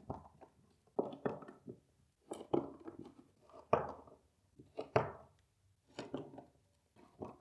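A hand screwdriver turning cam-lock furniture connectors a half turn into wooden panels to lock the joints. Short, quiet clicks and knocks come about once a second from about a second in, as the tool seats in each connector and turns.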